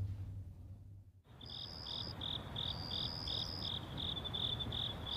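Crickets chirping after a brief hush about a second in: an even pulse of high chirps, about three a second, with a higher, thinner trill that comes and goes, over a low background hum.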